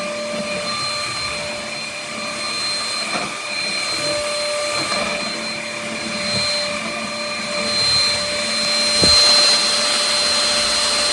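Cordless stick vacuum (UML0 N8) running steadily, a high motor whine over rushing air. A short knock comes about nine seconds in, as the head bumps something.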